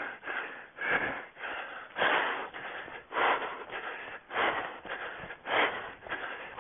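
An orienteering runner's hard, rhythmic breathing while running through forest, about one heavy breath every second or so.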